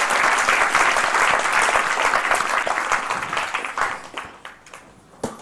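An audience applauding in a hall, dense clapping that dies away about four seconds in, leaving a few scattered claps.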